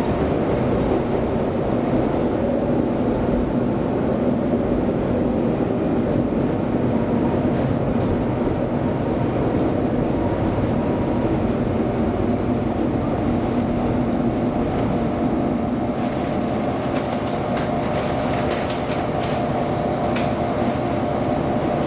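Train running on rails with a steady rumble. Thin, high-pitched wheel squeal joins about eight seconds in and lasts around ten seconds.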